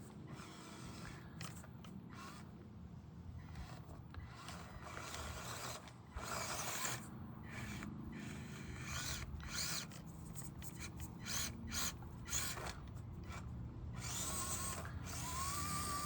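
Axial SCX24 Deadbolt micro crawler's small brushed 050 motor (66-turn) and geared drivetrain whining in short on-and-off stretches as the throttle is worked.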